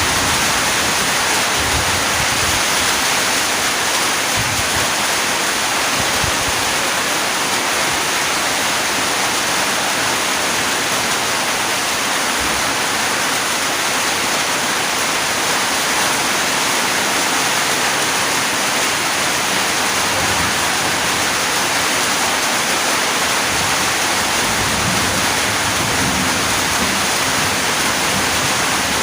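Steady, heavy rain falling: a continuous, even hiss with no breaks.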